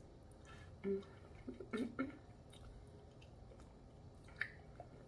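Close-up eating sounds: quiet chewing and mouth smacks with a few small sharp clicks, and short vocal sounds between about one and two seconds in.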